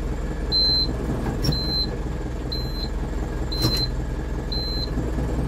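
Renault Ceres 340X tractor's diesel engine running steadily, heard from inside the cab. Over it, a short high-pitched beep repeats about once a second, with a couple of light knocks.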